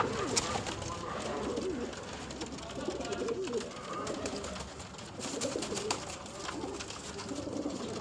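A flock of domestic high-flying pigeons cooing, many low rolling coos overlapping, with a few sharp clicks.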